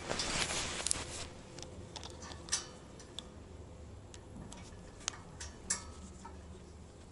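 Gloved hands handling a bicycle chain and a chain tool: about a second of rustling, then scattered small metallic clicks as the chain links shift and the tool is seated on the chain.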